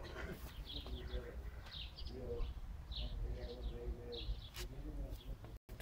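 Small birds chirping over and over, with a low steady rumble underneath.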